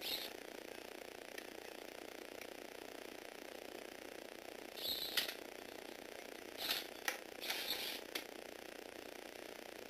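Small Tomy gearbox motor driving plastic Lego Technic gears in short bursts, a brief whirring clatter of gears. It comes once at the start, again about five seconds in, and several times in quick succession between about six and a half and eight seconds.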